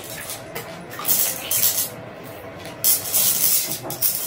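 Chocolate wrappers being handled and unwrapped, crinkling in irregular rustling bursts with a few sharp crackles.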